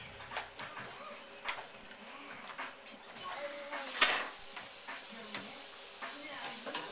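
Scattered light clicks and clatter of small hard objects being handled, with one louder knock about four seconds in, over a steady hiss.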